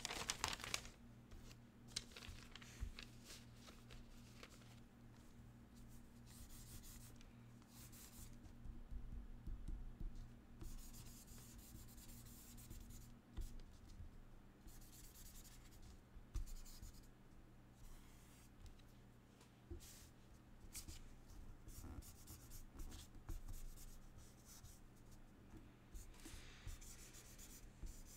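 Marker being drawn across paper in short, scratchy strokes that come and go, faint, over a low steady hum.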